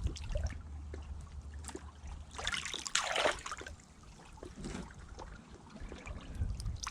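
Shallow river water trickling and splashing as hands work the river bottom and lift pieces out, with the biggest splash about three seconds in.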